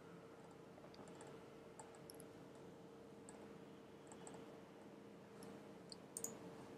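Near silence: a faint steady room hum with a few faint, scattered computer-mouse clicks, the loudest about six seconds in.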